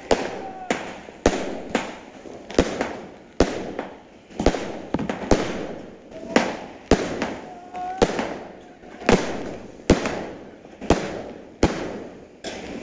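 Aerial fireworks going off in a steady series of sharp bangs, roughly one to two a second.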